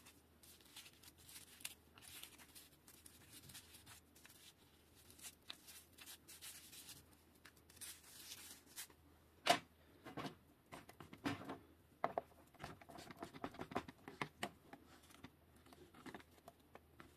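Toothbrush bristles scrubbing a perforated steel bicycle brake disc in quick scratchy strokes, degreasing the disc and its holes. From about halfway through there are louder wet clicks and taps as the disc is handled and soap foam is pumped onto it.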